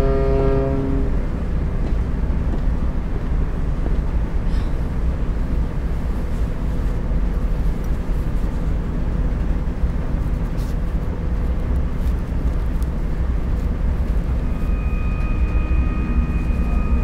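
Steady low engine rumble inside a ferry's passenger cabin, with a ship's horn blast dying away about a second in. Near the end, sustained music tones come in over the rumble.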